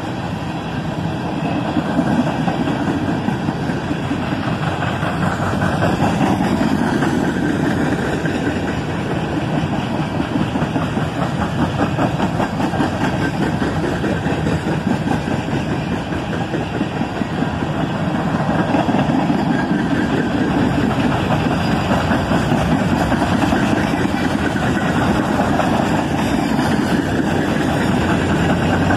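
Coal hopper cars of a freight train rolling past at a steady pace, wheels clanking and rattling on the rails.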